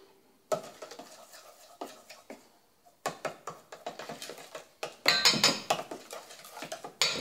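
Metal spoons clinking and scraping against a stainless steel mixing bowl as salt is measured in and stirred into the batter. Scattered light clicks and scrapes at first, then louder scraping from about five seconds in and a sharp knock near the end.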